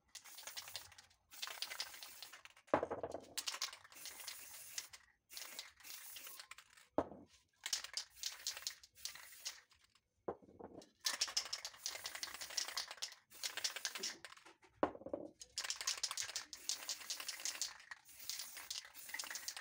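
Aerosol spray paint cans hissing in repeated bursts, from under a second to a few seconds each, with short pauses between them. Paper crinkles as a magazine page is worked over the wet paint.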